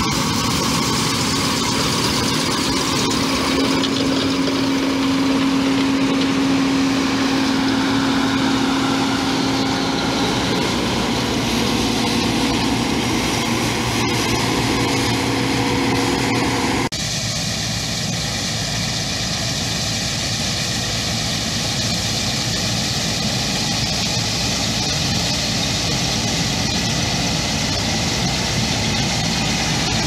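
John Deere combine harvesters running under load while harvesting canola, engine and threshing machinery making a steady drone with a constant hum. About halfway through the sound changes abruptly as a different combine, a T660, is heard.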